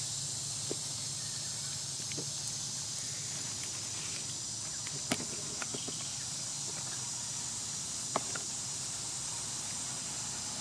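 Forest ambience: a steady, high insect drone, with a few sharp clicks scattered through it, the loudest about five seconds in.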